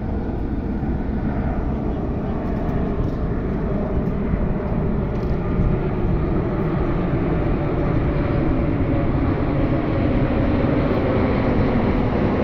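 Jet engine noise from a low flypast of a large jetliner with a formation of small jets: a steady rumble that grows gradually louder.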